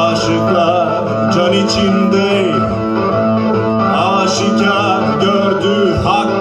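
Live music: an electric guitar plays a melodic instrumental passage of a Turkish folk-style song, with bent, wavering melody notes over steady low notes.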